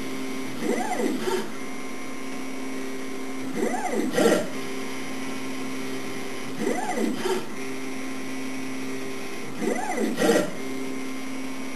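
CNC machine's stepper motors moving a touch probe over a spanner: a steady hum of held tones, broken about every three seconds by a short whine that rises and falls as an axis speeds up and slows down, several ending with a click.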